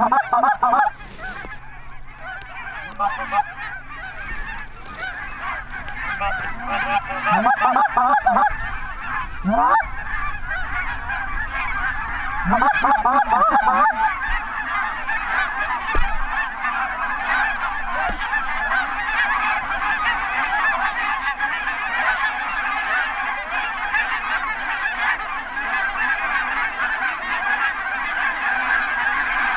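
A large flock of geese honking, the chorus of overlapping calls growing denser and louder as it goes on.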